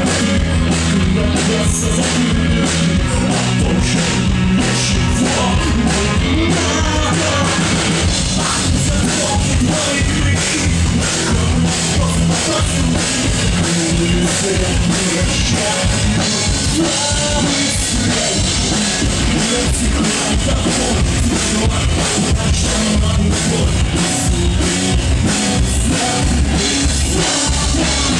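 Rock band playing live: drum kit keeping a steady beat under bass and electric guitars.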